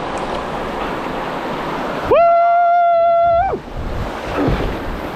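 Steady rush of river water over a small rapid. About two seconds in, a loud, held, high-pitched call, one steady note with a quick rise at the start, lasts about a second and a half, like a person's long shout.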